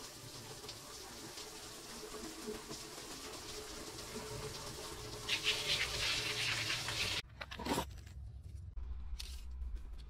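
Water spraying from a homemade PVC-pipe ring shower head, a steady hiss and patter of jets hitting a plastic sheet and a wall. The spray grows louder about five seconds in and cuts off suddenly about seven seconds in.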